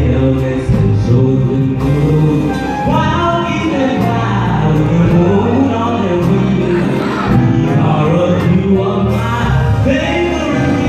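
A young man sings into a handheld microphone with gliding, bending vocal lines, backed by a live band with keyboard and drum kit, all through a sound system.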